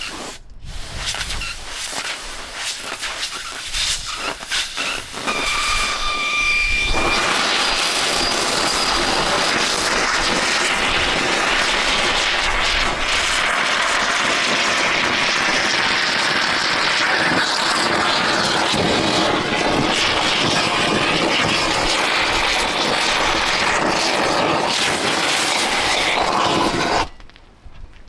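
Exothermic pin cutter, an oxygen-fed magnesium cutting rod, sputtering and crackling for several seconds as it is struck. About seven seconds in it catches and burns with a loud, steady hiss as it cuts into a bulldozer pin. The hiss cuts off suddenly about a second before the end as the burn is stopped.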